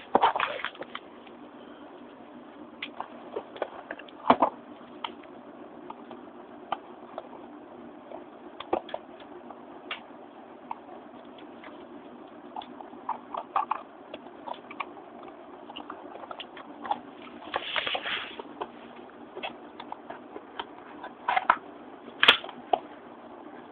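Beyblade retail box, cardboard with a plastic window, being handled and turned over: scattered light clicks and taps with a few short bursts of rustling, over a steady low hum.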